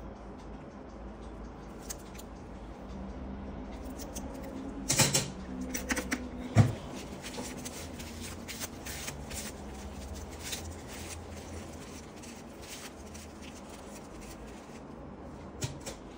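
Metal nail nippers snipping a toenail: a quick cluster of sharp clicks about five seconds in, a dull knock soon after, then a run of lighter clicks for several seconds.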